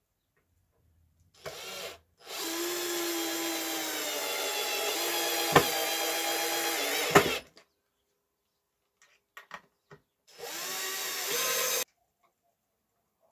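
Electric drill driving wood screws into a pine support strip: a short burst, then a steady run of about five seconds with two sharp cracks near its end, and another short run near the end.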